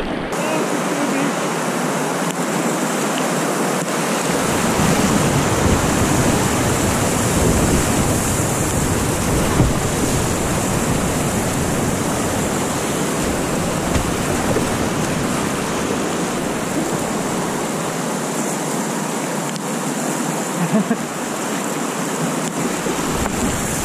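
Whitewater river rapids rushing steadily, heard close up from the kayak, with a deeper rumble joining about four seconds in.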